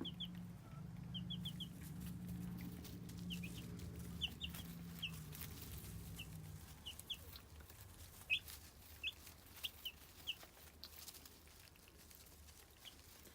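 Young chicks, about two weeks old, peeping: scattered short, high chirps, several a second at times. A low steady hum lies under the first half and stops about six and a half seconds in.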